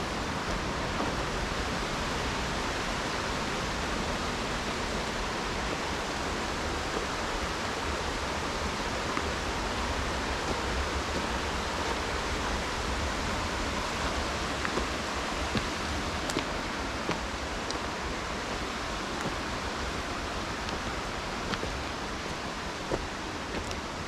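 Mountain stream rushing steadily through a rocky gorge, with a few faint clicks in the second half.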